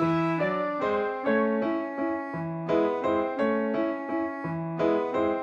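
Background music: a gentle melody on piano or electric piano, a string of separate notes each struck and fading.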